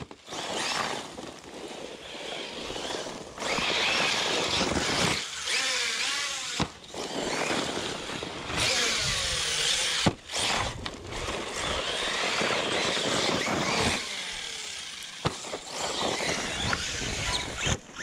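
Large-scale ARRMA Talion XL electric RC truck running hard on dirt: its brushless motor whines, rising and falling in pitch as it accelerates and lets off, while the tyres spray loose sand. A few sharp clicks stand out.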